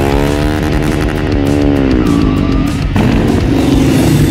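Motorcycle engines running as motorcycles ride past. One engine note rises and then falls over the first three seconds, then cuts off abruptly and gives way to a steadier, lower engine sound.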